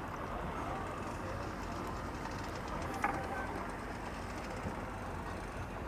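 Boat engine running with a steady low rumble amid waterside background noise, with one short sharp click about three seconds in.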